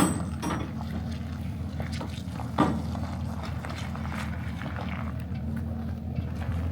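A motor running steadily with a low hum, with a sharp knock at the start and a heavier thump about two and a half seconds in.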